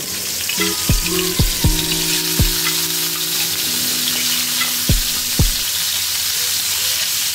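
Turmeric-coated pangas fish pieces sizzling in hot oil in a frying pan, with more pieces being laid in. Several short low thumps come in the first half and again about five seconds in.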